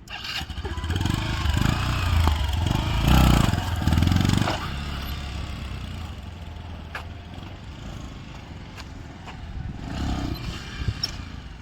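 Motorcycle engine revving in several loud surges over the first few seconds, then running more quietly, with another brief rise in revs near the end.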